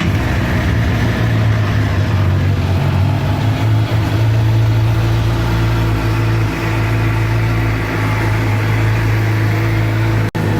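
Suzuki GSX-R750 inline-four engine idling steadily just after starting, with no knocking from under the stator cover: the owner judges the loose-stator-screw problem fixed. The sound breaks off for an instant near the end.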